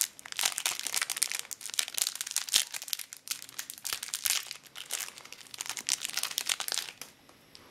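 Crinkly plastic candy wrapper being worked open by fingers: a dense run of crackles that stops about seven seconds in.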